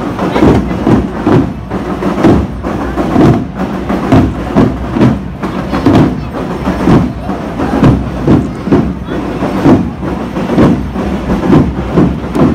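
Marching band percussion playing a steady parade beat, drum strikes repeating at an even pace.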